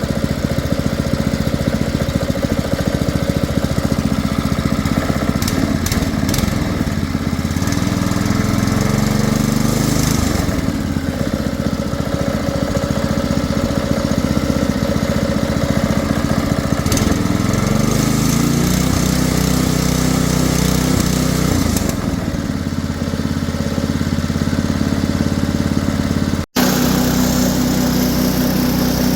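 New Xtremepower 7 hp single-cylinder small engine on a wood chipper running on its first start, its speed rising and falling twice. After a sudden break near the end it runs steadily at a higher pitch.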